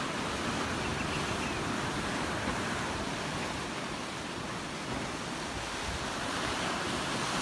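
Sea surf breaking and washing against a rocky shore, a steady rush of water, with wind buffeting the microphone.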